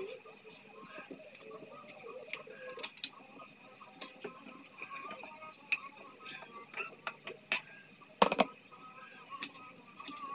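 A kitchen knife cutting potato and then carrot on a plastic cutting board: irregular sharp taps of the blade against the board, with one louder knock about eight seconds in.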